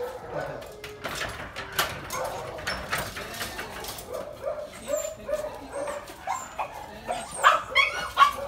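Pet dogs whining and giving short yelps over and over, loudest near the end, with clicks and clatter from a metal collapsible scissor gate being unlocked and slid open.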